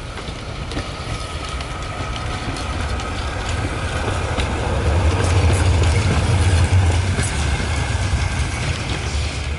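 A tram passing by on its rails: a low rumble of wheels and running gear that grows louder as it approaches, loudest a little past the middle. A faint, steady high whine runs over the rumble.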